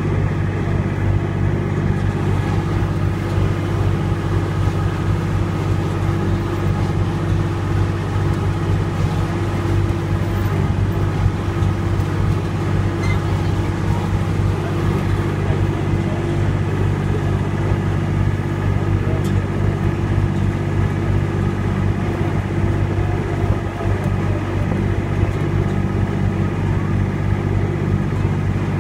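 Engine of a holiday ride train running steadily, a constant low drone with no change in speed.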